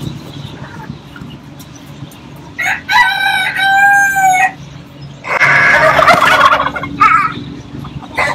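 A rooster crows once, a long call about three seconds in. A couple of seconds later a tom turkey gobbles in a loud, rough rattle.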